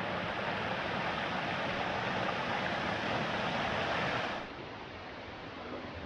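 Rushing water of a mountain brook, a steady hiss that cuts off suddenly about four and a half seconds in, leaving a quieter outdoor background.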